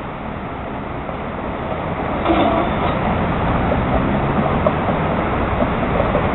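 Steady low rumble of vehicles at a streetcar stop, growing louder about two seconds in.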